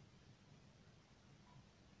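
Near silence: a faint, steady low room hum.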